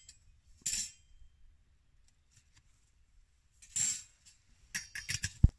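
Metal parts of a stainless-steel twig stove clinking and scraping as they are fitted together: a few separate clinks, then a quick run of sharper clinks near the end, the last one the loudest.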